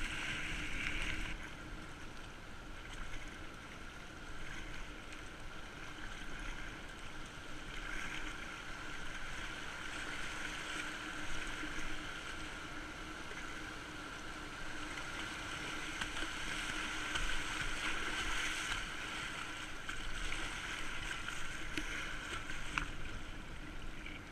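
Steady rush of a fast, high river (about 55 cubic metres a second) flowing around a kayak as it is paddled downstream.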